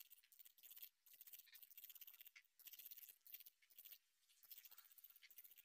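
Near silence, with faint, soft rustling of fingers rubbing the wet leaves of a small desert rose plant.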